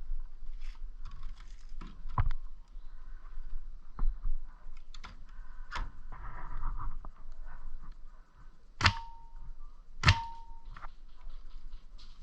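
Scattered sharp clicks and knocks, the two loudest about a second apart near the end, each followed by a brief ringing tone.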